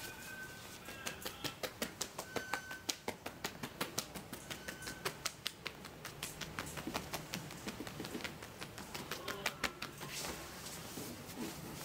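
Rapid hand chops and slaps on a person's arm through a cotton shirt sleeve during a barber's arm massage, a fast run of sharp strikes about three to four a second that stops near the end.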